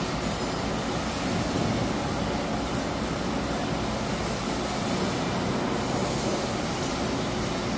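Truck-mounted mobile crane's diesel engine running steadily, a low even drone with a wash of construction-site noise over it.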